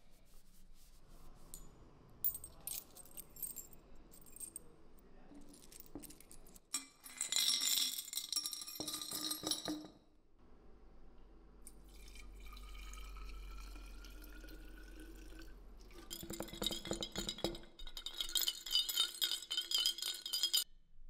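Small metal rifle parts clinking and rattling together, in two stretches of rapid jangling clicks, one about seven seconds in and a longer one near the end.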